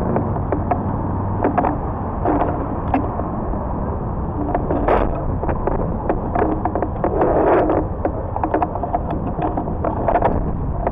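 Bicycle riding along a city bike lane: a steady rumble of tyres and wind, with frequent rattles and clicks from the bike as it rolls over the paving.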